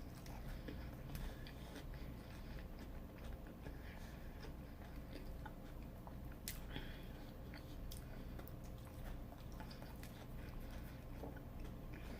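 A person chewing and biting fried food close to the microphone, faint, with scattered small crunches and mouth clicks.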